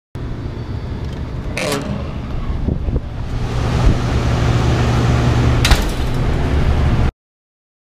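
Lever-handle door latch clicking and then the door knocking shut, about four seconds apart. Both sit over a loud steady low rumble that grows louder partway through.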